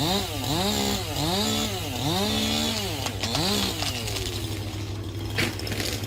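Chainsaw engine revving up and down over and over, its pitch rising and falling more than once a second, then settling into a longer falling note near the end.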